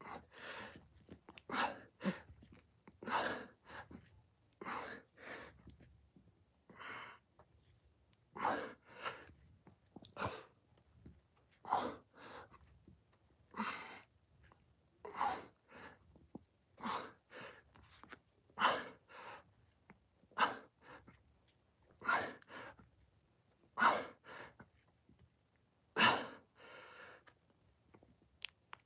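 A man breathing hard with the effort of push-ups: short, forceful breaths in and out, one about every one and a half to two seconds, keeping time with the reps.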